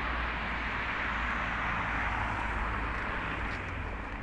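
Road traffic: a steady rushing noise over a low rumble, swelling a little in the middle and easing near the end.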